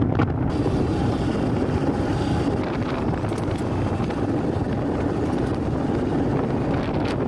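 Wind buffeting the microphone over the running engine and tyre noise of a two-wheeler riding along a rough concrete road. The noise is steady and heavy in the low range.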